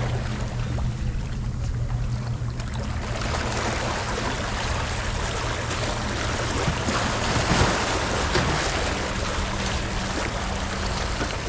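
Wind and sea water at the shoreline, a steady rushing haze that swells briefly about two-thirds of the way through, with a low steady hum at the start and again near the end.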